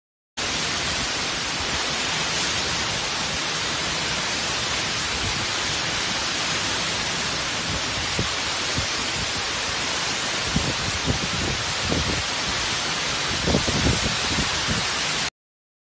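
Torrential tropical-storm rain and wind, a dense steady hiss, with gusts buffeting the microphone in the second half. It starts abruptly about half a second in and cuts off shortly before the end.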